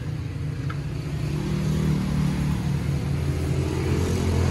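A motor vehicle's engine running, growing gradually louder.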